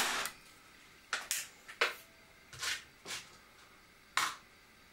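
Webley Nemesis single-stroke pneumatic air pistol firing once, a sharp crack right at the start. Then about half a dozen quieter metallic clicks and clacks from handling the pistol over the next few seconds.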